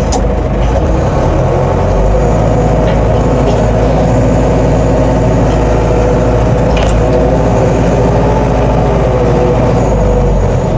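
Diesel engine of a Collins Teleshift 404 farm loader running steadily, its note rising and falling a little.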